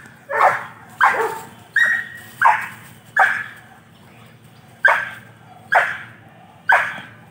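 Belgian Malinois on a leash giving loud, sharp guard barks at a helper during protection training. There are about eight barks, roughly one every 0.7 seconds, with a pause of about a second and a half midway.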